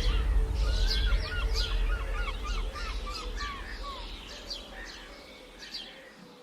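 Several songbirds chirping and singing, with a quick run of repeated short notes in the first few seconds, over a low rumble; the whole sound fades out gradually.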